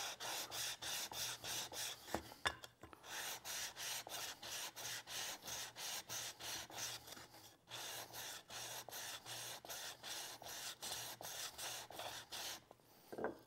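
Steel scraper blade rubbed back and forth on a 300-grit diamond sharpening stone wetted with lapping fluid, held flat under an MDF block: an even scrubbing rhythm of about four strokes a second as the bevel is polished, with a brief pause partway through.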